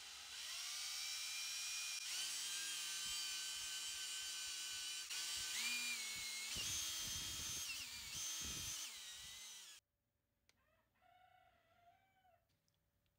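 Power drill spinning a paddle mixer through a bucket of resin, its motor whine shifting up and down in pitch as the speed changes. It cuts off suddenly about ten seconds in, leaving near silence.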